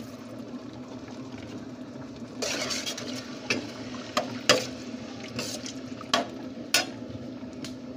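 A steel spoon stirring thin, watery masala gravy in a steel pan: a liquid swish about two and a half seconds in, then several sharp clinks of the spoon against the pan. A steady low hum runs underneath.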